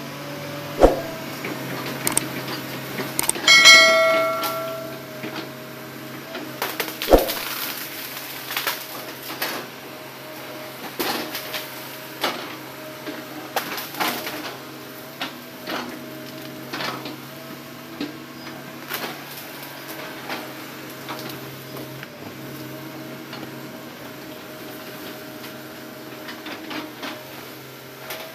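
Hitachi hydraulic crawler excavator's engine running steadily while the machine turns and travels, with a stream of metal clanks and rattles from its tracks and steel parts. Two sharp knocks stand out, about a second in and about seven seconds in, and a short ringing squeal comes around three and a half seconds in.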